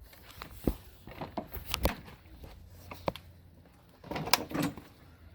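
Scattered knocks and clunks of a walk-behind mower being handled and tilted up onto its side, with a louder rattling clatter about four seconds in.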